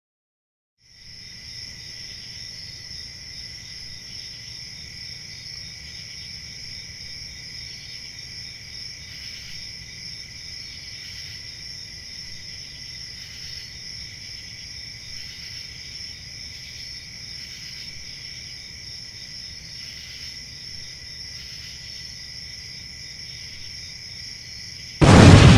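A steady insect chorus, like a night-time field of crickets, with a low rumble beneath it. Near the end a sudden, much louder burst of noise cuts in.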